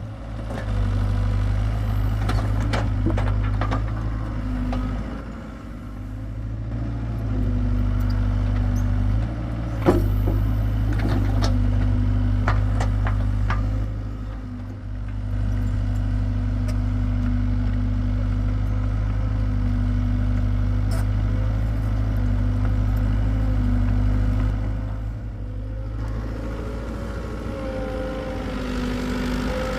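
Hitachi EX75UR excavator's diesel engine running steadily under digging load, with the hydraulics straining and easing, the loudness dipping briefly a few times. Several sharp knocks sound in the first half, the loudest about ten seconds in.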